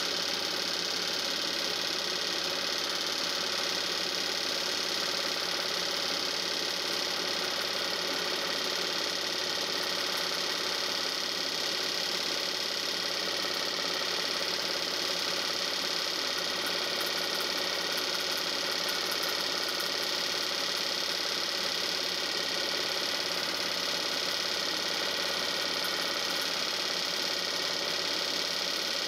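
Film projector mechanism running steadily, a machine whir that does not change with the action on screen, heard during the transfer of an old 8 mm home movie.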